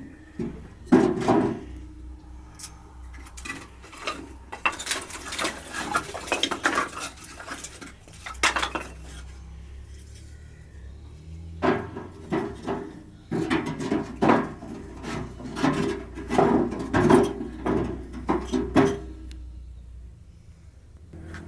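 Pots and cooking utensils clinking, knocking and scraping in spells: once about a second in, then from about four to nine seconds, and again from about twelve to nineteen seconds.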